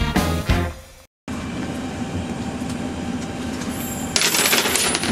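Background music ends about a second in, giving way to the steady hum of a bus interior. About four seconds in, a handful of coins clatters loudly at the bus fare box beside the driver.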